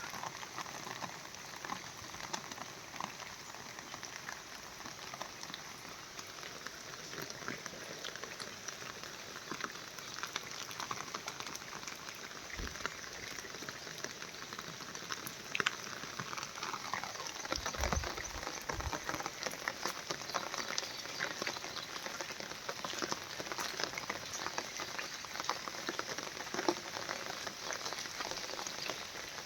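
Steady rain falling, a dense patter of drops, with a couple of low bumps about two-thirds of the way through.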